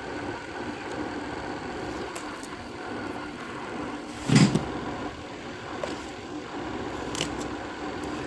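Handling of a plastic kitchen appliance, with a single thump about four seconds in and a few light clicks, over a steady background hum.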